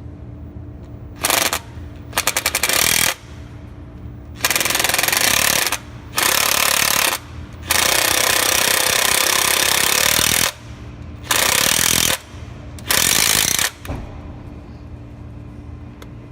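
Power drill drilling out a stripped bolt hole in engine metal, run in about seven bursts of a second or so, the longest nearly three seconds, with a steady low hum in the pauses between them.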